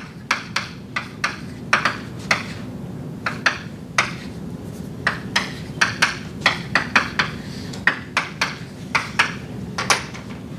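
Chalk tapping and scratching on a blackboard as equations are written: irregular bunches of sharp clicks, a few a second, with short pauses between them.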